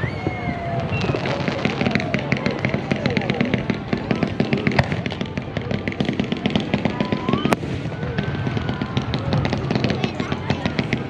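Aerial fireworks bursting: dense, rapid crackling from crackle shells, with two sharper bangs about five and seven and a half seconds in.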